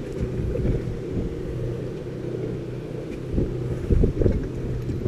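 Small boat under way: a steady low motor hum with wind on the microphone and water noise, and a few heavier low thumps between about three and a half and four and a half seconds in.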